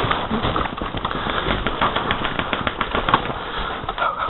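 Airsoft guns firing in rapid, irregular strings of shots, several a second, as players exchange fire.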